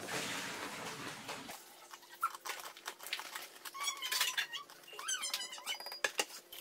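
Plastic snack bag crinkling and rustling as a hand digs pieces out and drops them into a small glass bowl, with many small clicks and crackles. A couple of short high-pitched sounds come about four and five seconds in.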